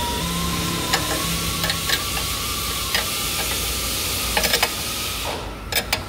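Steady hiss with a few light metallic clicks, bunched together near the end, as a ball joint separator is fitted on a BMW E39 front control arm ball joint and its bolt is tightened with a wrench.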